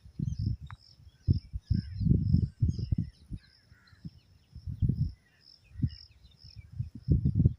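Rural outdoor ambience: birds calling, with a high chirp repeating a few times a second, under irregular low rumbling bursts that are the loudest sound.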